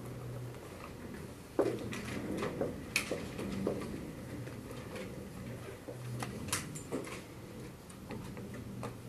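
Scattered, irregular light clicks and taps over a steady low hum in a quiet room.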